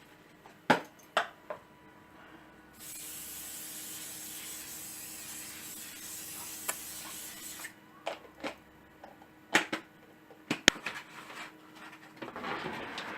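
Clicks and knocks of a tray of chicken being handled and set into an oven under the grill. A steady hiss runs for about five seconds in the middle, starting and stopping abruptly.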